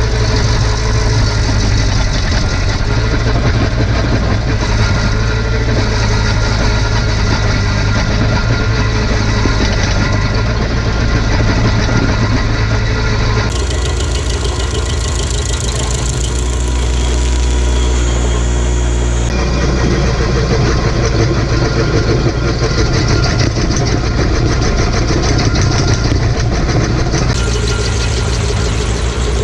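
Tractor engine running steadily under a constant loud drone, as when driving a PTO stump grinder. Its tone changes abruptly three times.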